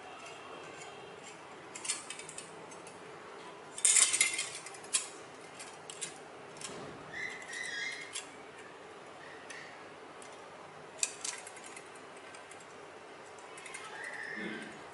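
Thin aluminium drink-can strips being bent and handled, giving scattered light metallic clicks and crinkles, with the sharpest cluster about four seconds in.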